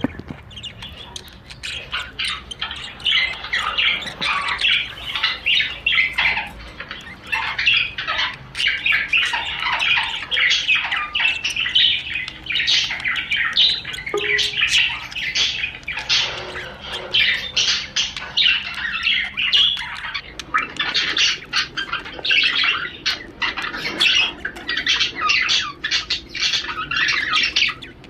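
Male budgerigar warbling: a fast, unbroken chatter of chirps and squawks, the courtship song that is played to get budgies in the mood to breed.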